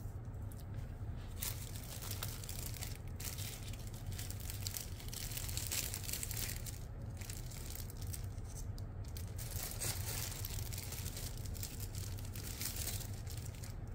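Plastic kit bags crinkling and rustling in irregular bursts as model-kit sprues are handled, over a steady low hum.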